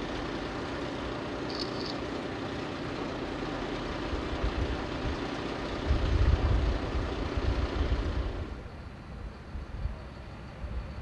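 Heavy vehicle engine running steadily at idle, stopping about eight and a half seconds in.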